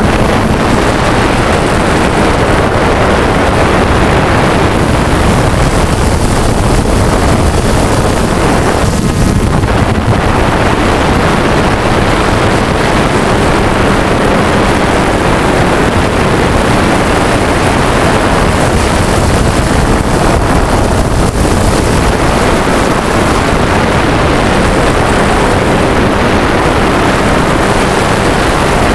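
Multirotor drone's propellers and motors heard from on board the drone: a loud, steady whir mixed with the rush of prop wash and wind on the microphone.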